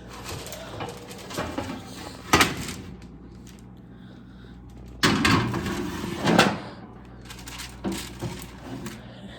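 Oven door and baking tray being handled: a sharp knock about two seconds in, then a louder clatter from about five seconds in that ends in a bang, and a few lighter knocks near the end.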